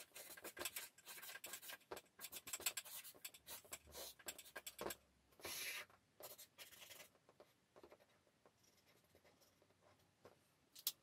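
Felt-tip marker writing on easel-pad chart paper in short strokes, faint. The strokes stop about seven seconds in.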